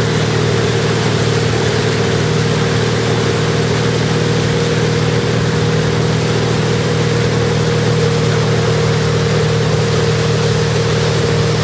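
Tow boat's engine running steadily at speed, one constant drone, with rushing water from the wake over it.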